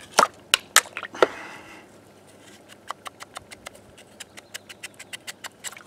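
A tool knocking and picking at the soaked investment plaster in a casting flask: a few sharp knocks in the first second and a half, then a quick run of lighter clicks.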